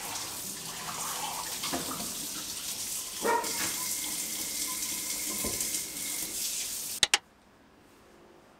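Kitchen faucet running onto a ceramic bowl being rinsed in the sink, a steady splashing hiss with a few light knocks. It cuts off suddenly near the end, with two short sharp clicks, and near quiet follows.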